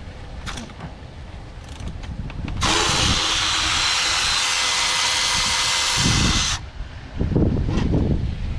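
A power tool runs steadily for about four seconds, starting a little over two seconds in and cutting off sharply, as a water pump bolt is backed out.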